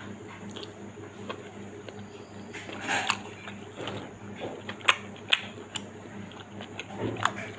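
A person chewing a mouthful of cooked meat, with wet smacking and several sharp mouth clicks, the loudest in the middle and near the end, over a low steady hum.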